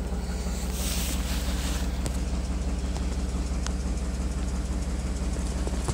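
Steady low hum of an idling engine, with a couple of faint ticks.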